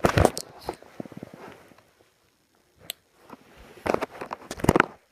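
Handling noise of a folding pocket knife being worked closed: rustling and sharp clicks at the start and again near the end, with a near-silent pause between.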